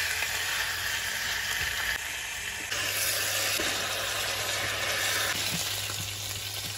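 Strips of meat frying in vegetable oil in a nonstick skillet, a steady hiss of sizzling, with the pieces stirred and turned by a spatula. The sizzle changes abruptly about two seconds in and again a little later.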